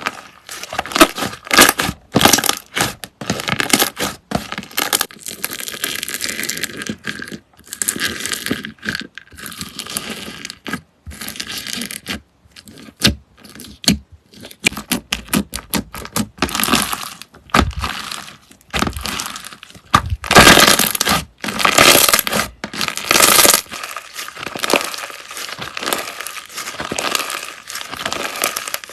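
Slime being worked by hand, giving an irregular run of crackling, crinkling bursts with short pauses between them.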